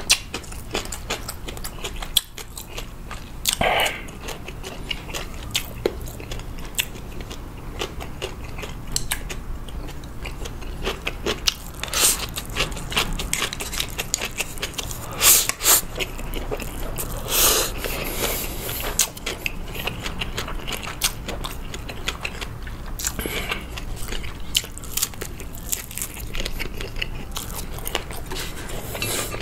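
Close-miked eating: chewing and biting through mouthfuls of Indomie Mi Goreng instant noodles and air-fried Vienna sausages, with many small wet mouth clicks and a few louder bursts around the middle.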